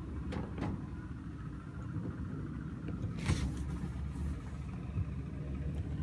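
Short plastic clicks and a brief scraping rub as the washing machine's inlet hose coupling is handled and fitted back onto the water inlet valve, over a steady low rumble.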